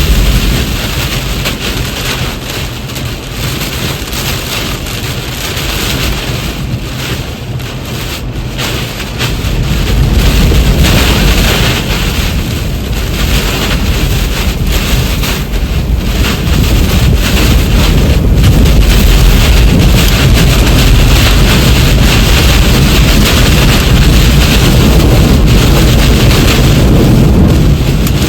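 Tornado winds and heavy rain battering a vehicle, with wind buffeting the microphone. The rumbling roar grows louder and deeper about ten seconds in and stays loud.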